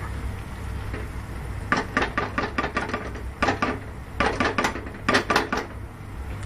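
Kitchen utensils and dishes clattering in four quick runs of sharp knocks, over a steady low hum.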